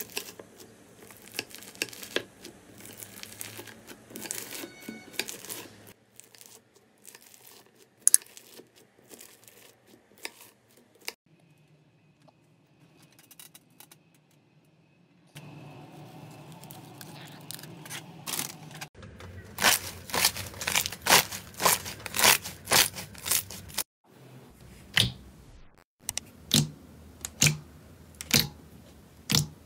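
Slime being worked by hand in a string of close-up clips. Bead-filled crunchy slime crackles as it is cut. Later comes a run of loud sharp pops and crackles from slime being pressed and squeezed, the loudest part, followed by single pops about once a second.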